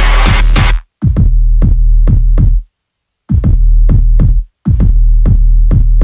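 Electronic background music with a drum-machine beat and a heavy, sustained bass, cutting off abruptly into short silences three times and starting again.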